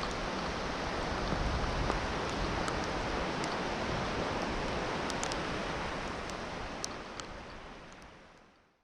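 Steady rushing noise of sea surf and wind, with a few faint high ticks, fading out near the end.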